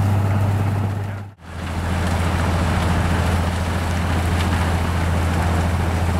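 Snowplow locomotive's diesel engine running steadily under load, with a low hum under the rush of snow being ploughed aside. The sound fades out briefly and comes back about a second and a half in.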